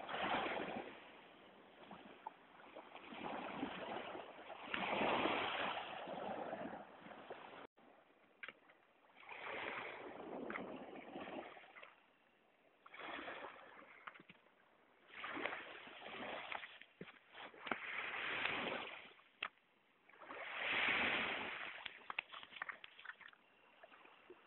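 Small sea waves washing and sloshing against the shore in repeated surges, one every two to three seconds, with a few sharp clicks near the end.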